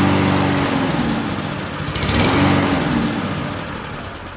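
Kohler small engine on a Lawn-Boy mower running on a shot of starter fluid, surging twice and fading near the end. That it runs on starter fluid points to a fuel delivery fault, a dirty carburetor.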